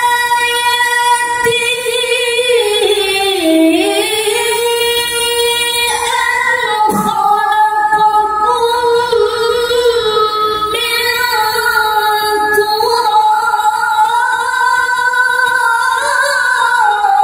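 A male qari reciting the Quran in melodic tilawah style, holding a long, high-pitched sustained phrase with ornamented turns, its pitch dipping about three and a half seconds in and rising again.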